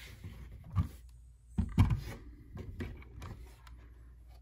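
Handling noise from a LEGO Creator Ford Mustang model being turned around on a tabletop: a few soft bumps and rubbing of the plastic body and tyres against the surface, the loudest about two seconds in.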